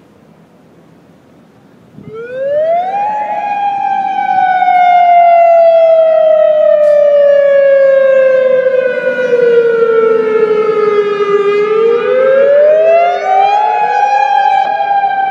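Outdoor emergency warning siren sounding for a test of the emergency siren system, extremely loud. It starts about two seconds in, quickly climbs in pitch, then slowly falls over about eight seconds, then climbs again and holds high near the end.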